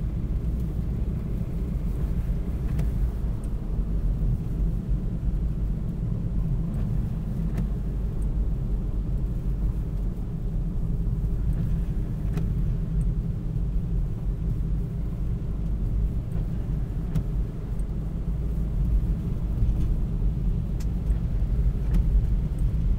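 Steady low rumble of a four-wheel-drive vehicle driving on a snowy road, its engine and tyres heard from inside the cabin at just under 30 mph.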